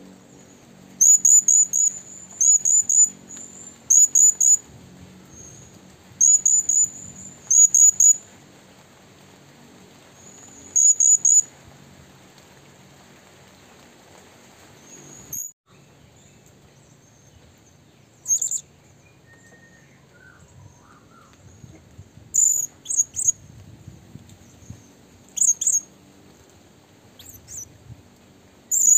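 High-pitched bird chirps in quick clusters of two to four, repeated every second or two, sparser after a brief break midway.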